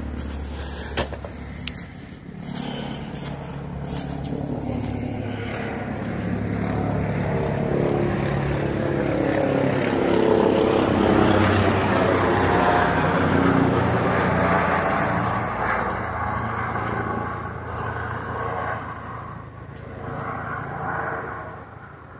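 Military helicopter flying over: its rotor and engine sound builds up to a peak about halfway through, then fades as it moves away.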